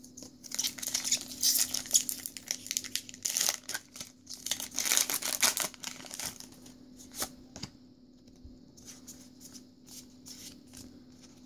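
A foil Pokémon XY Evolutions booster pack being torn open and its wrapper crinkled, in a run of noisy rips over roughly the first six seconds, followed by softer, scattered clicks and rustles as the cards are handled.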